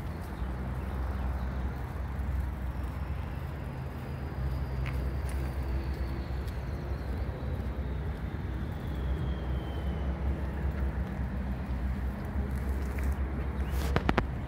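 Steady low rumble of motor vehicle engines from road traffic, with a few sharp clicks near the end.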